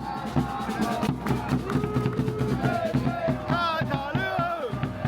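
Music with a steady drum beat and a melodic line over it.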